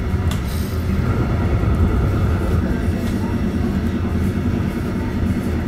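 Steady low rumble of a moving train heard from inside the carriage, with a couple of faint clicks from the running gear.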